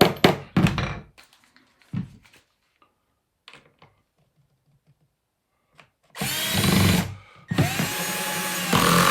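A few sharp knocks, then a drill-driver spinning up twice, the second run longer, driving a screw into the cabinet carcass panel.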